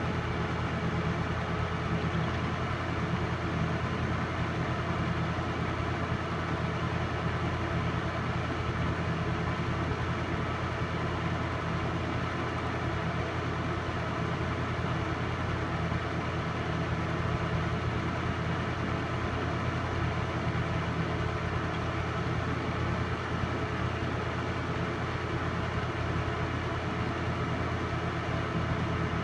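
Film projector running with a steady, unchanging low drone, the only sound under a silent home movie.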